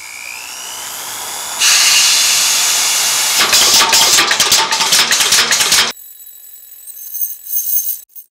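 Metalworking machinery rolling and cutting platinum strip. A rising whir jumps to loud steady machine noise about one and a half seconds in, with rapid clattering added partway through. It cuts off suddenly near six seconds, leaving faint high ringing tones and a few clicks.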